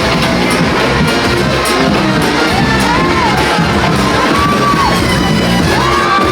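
Loud parade music: drums under long held high notes that slide up and down, repeated about three times, with shouts from the crowd.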